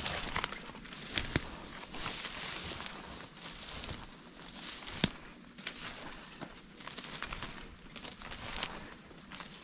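Footsteps through dry leaves and low brush, with rustling and sharp snaps of twigs and stems brushing past, the loudest snap about five seconds in.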